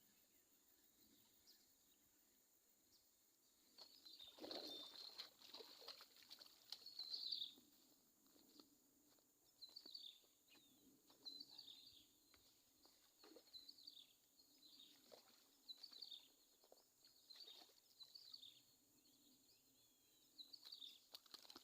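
Faint bird calls, short chirping phrases repeated about every one and a half to two seconds, starting a few seconds in, over quiet outdoor ambience with a few soft clicks and rustles.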